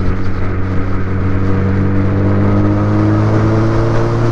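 A 2011 Suzuki Hayabusa's 1340 cc inline-four engine heard from on board, pulling steadily under throttle, its pitch rising slowly as the bike gathers speed, over a steady rush of wind.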